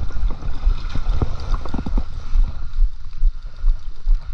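Wind buffeting the camera microphone, a heavy uneven rumble, with a few short knocks from handling the rod and landing net in the first couple of seconds.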